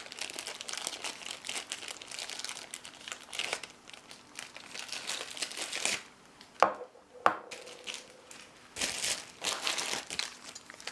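Packaging crinkling and rustling as padlocks are handled and unwrapped by hand, with two sharp knocks a little past halfway during a brief lull.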